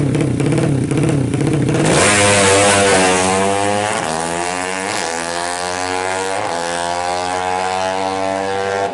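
A 200cc racing motorcycle engine run hard. It is rough and loud for the first couple of seconds. From about two seconds in its pitch climbs and drops back several times, as it would through gear changes. It falls away sharply at the very end.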